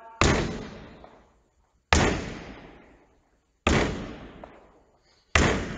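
Netball thrown against a wall in chest passes: four sharp thuds about every 1.7 seconds, each echoing for about a second in a large sports hall.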